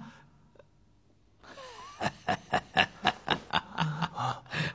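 Laughing in quick repeated bursts, starting with a breathy onset about a second and a half in, after a near-silent pause.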